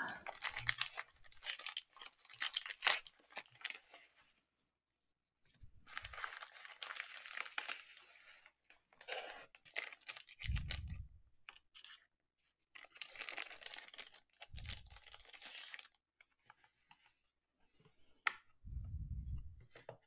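Plastic wrapping and a plastic bag crinkling and tearing as parts are unwrapped by hand, in several bursts with a few dull thuds, and a sharp click near the end.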